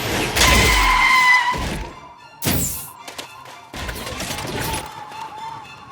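Cartoon sound effects over the end of the music: a loud whoosh with a ringing tone, then a sharp thud about two and a half seconds in and a short noisy rustle a second later, as the cartoon rescue bus arrives.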